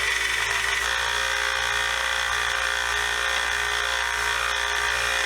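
1x30 belt sander running a 150-grit belt, grinding pitting out of a screwdriver blade: a steady motor-and-belt whine whose pitch shifts slightly about a second in.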